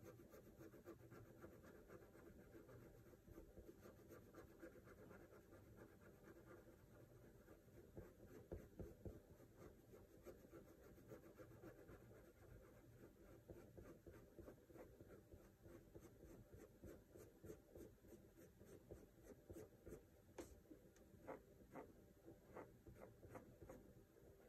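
Faint scratching of a pointed wooden drawing tool on the drawing surface in many short, quick strokes, coming faster in the second half.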